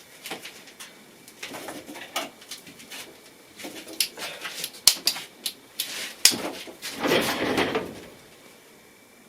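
Small sharp metal clicks and taps as pliers grip and work at a stuck pentalobe screw in the bottom of an iPhone XR, with a short low pitched sound about seven seconds in.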